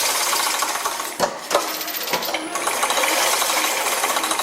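Automatic chain-link mesh machine running: a continuous metallic clatter and jingling of steel wire and mechanism, broken by sharp knocks that repeat every second or so.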